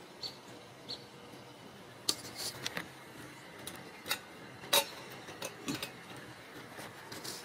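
Ragdoll cat eating from a stainless steel bowl: irregular light clicks and clinks against the metal, with a cluster about two seconds in and the sharpest clink near the middle.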